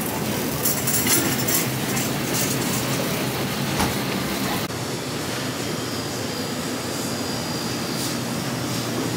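A shopping cart rolling and rattling over a store floor, with scattered clatters, above a steady low hum; the rattle eases about halfway through.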